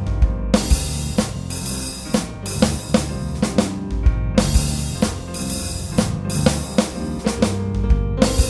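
Music: a drum kit beat with bass drum and snare hits over a deep bass line and sustained pitched notes.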